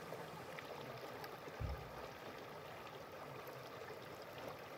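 Shallow mountain stream rushing over rocks, a steady faint water noise. A brief low thump about a second and a half in.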